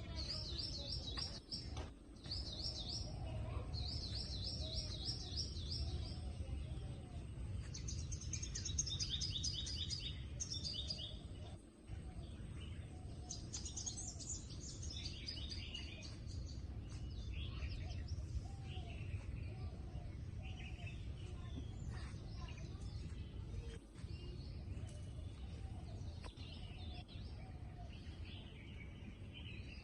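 Birds singing in short, rapid trilled phrases, repeated again and again, over a steady low rumble.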